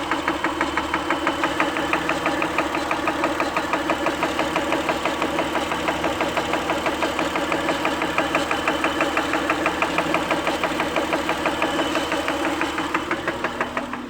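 Acura engine idling with a rapid, even ticking throughout, the ticking noise the owner is asking about.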